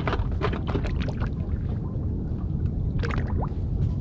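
Water lapping and knocking against the hull of a small open skiff, over a steady low rumble, with scattered small clicks.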